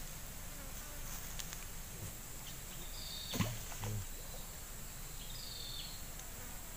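Insects on a forested riverbank keeping up a steady high-pitched drone. Two short high chirps come about three and five seconds in, with a couple of soft knocks between them.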